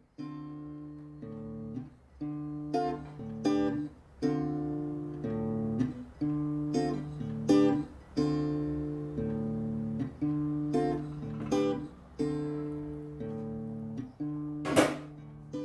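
Acoustic guitar music, chords plucked and strummed, a new chord about every second. A brief, loud hissing burst about a second before the end.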